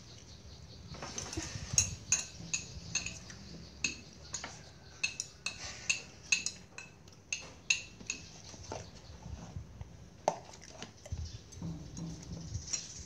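Metal spoon clinking and scraping against a ceramic plate while eating, an irregular run of short ringing clinks that thins out near the end.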